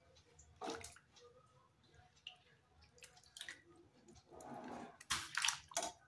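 Thin raw potato slices dropped into a steel pot of hot water, splashing a few times, with the loudest cluster of splashes near the end.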